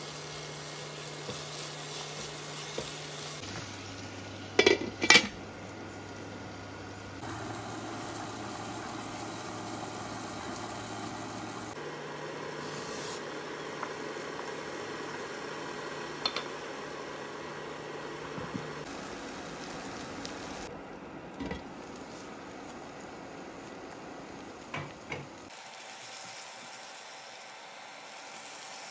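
Sliced peppers and onion sizzling in a frying pan while a spatula stirs them, with utensils clinking against the pan now and then. A pair of sharp clinks about five seconds in is the loudest sound.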